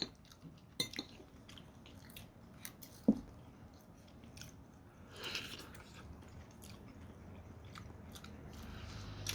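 Close chewing and crunching of crisp fried food, with a few sharp clicks, the loudest about three seconds in.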